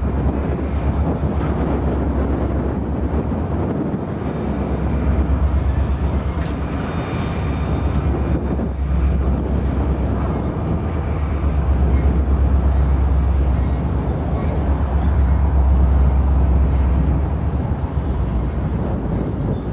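Heavy wind noise buffeting the microphone over the low rumble of a freight train of tank cars and flatcars rolling slowly past.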